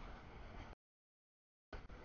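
CSX freight train rolling past, a steady noise of cars on the rails, heard in broken pieces: the audio feed drops out to dead silence after under a second and comes back near the end.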